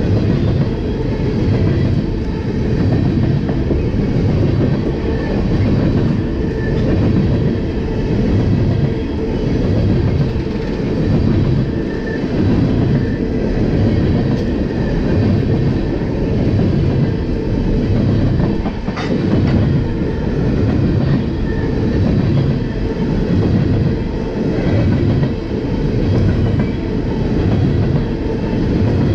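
Freight train of empty ethanol tank cars rolling past, its wheels clicking over the rail joints in a steady repeating rhythm. One sharper clank comes about two-thirds of the way through.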